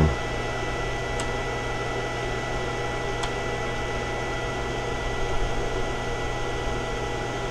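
Steady hum and whir of a homemade pulse circuit running with its small cooling fan: a low hum under a thin high tone, with two faint ticks about one and three seconds in.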